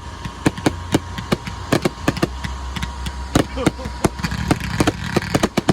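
Fireworks going off in a rapid, irregular string of sharp bangs and cracks, several a second, over a low rumble.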